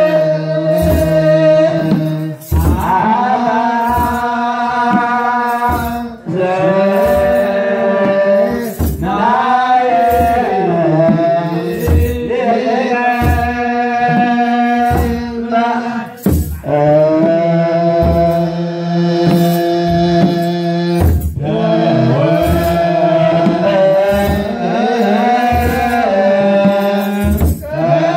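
Men's voices chanting an Eritrean Orthodox hymn together in long sung phrases broken by short pauses, over a steady beat on kebero drums, with the metal jingle of hand-held sistra.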